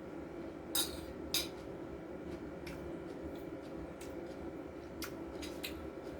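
Eating utensils clinking against a dish several times, the two loudest clinks close together about a second in, over a steady low hum.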